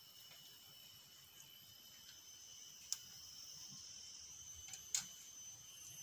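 Steady high-pitched drone of forest insects, with two sharp clicks about three and five seconds in from a cloth-covered decoy-bird cage being lifted and hung.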